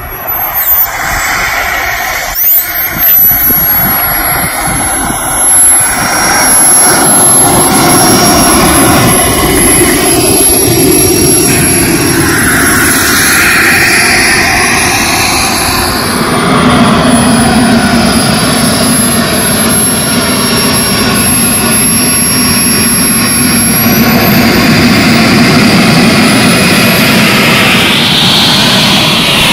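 Turbine engine of a radio-controlled model jet running: a loud rushing roar with a high, steady whine. The whine sweeps up and back down in the first couple of seconds, then rises in pitch about three-quarters of the way through.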